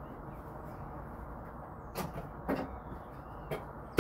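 A few knocks and clunks as someone moves about to switch the shore power back on: two soft knocks about two and two and a half seconds in, then a sharp click at the very end, over a steady low hum.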